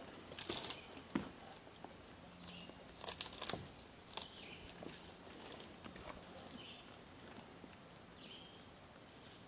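Boots stepping and scuffing on loose rock: a few crunching footsteps, loudest in a quick cluster about three seconds in, then only faint scrapes.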